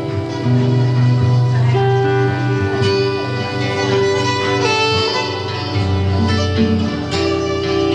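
A live band playing an instrumental passage: guitar over low, held notes, with several instruments sounding together in a steady wash.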